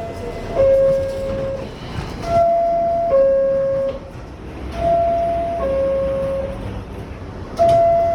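New York City subway car door chime sounding its high-pitched two-note ding-dong, a higher tone stepping down to a lower one, repeated over and over about every two and a half seconds. This is the warning chime that the doors are about to close.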